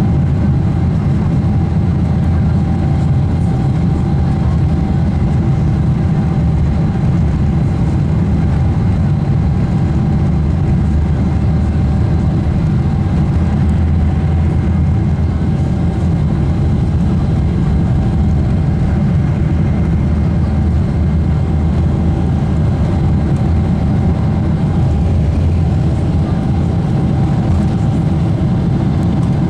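Steady, loud rumble of a Boeing 777's jet engines and its wheels on the runway, heard from inside the cabin during the takeoff roll, with a faint steady whine over it.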